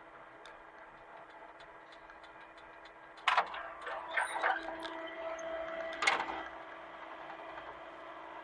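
Hitachi mini excavator running steadily, with loud metallic clanks about three seconds in and again near six seconds, and clattering and a steady whine between them as it works.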